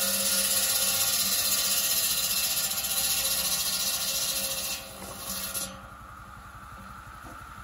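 Belt-driven circular saw biting through a log, a loud hissing whine with several high ringing tones as the blade cuts. The cut finishes about five seconds in, there is a short second touch of the blade, then the saw spins free much more quietly, with a low steady pulsing underneath.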